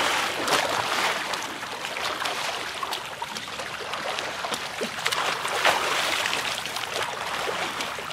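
Swimming-pool water splashing and sloshing unevenly as people move about in it.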